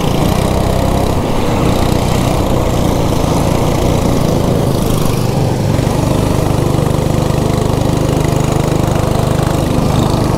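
Go-kart engine running steadily at speed, heard from the driver's seat, its pitch and loudness holding even.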